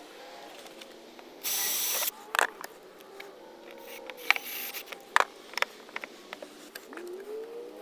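Cordless drill run in a short burst about a second and a half in, with a fainter burst near four seconds, working into a plastic fender shroud. Sharp clicks and taps from handling the plastic fender come between them.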